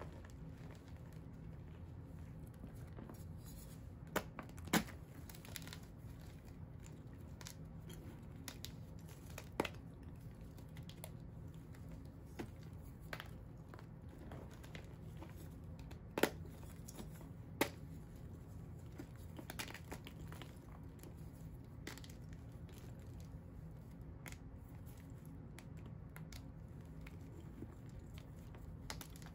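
Hands crumbling and crushing pink dyed-and-dried chalk blocks in a plastic tub: continuous soft crunching and crumbling, with scattered sharp snaps as pieces break. The loudest snaps come around 5, 10, 16 and 18 seconds in, over a faint steady low hum.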